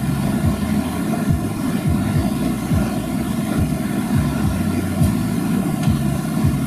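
An off-road 4x4's engine running steadily, with a constant drone and low, regularly repeating pulses.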